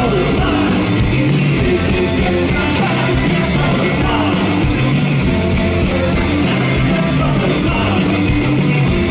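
Live rock band playing distorted electric guitars and drums, steady and loud, heard from within the crowd.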